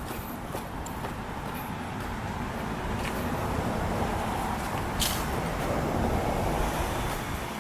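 Traction Hobby Four King 1/8-scale RC crawler driving over rough ground: its motor and drivetrain run steadily, growing louder over several seconds and then easing off near the end. A few sharp clicks sound in between, the clearest about five seconds in.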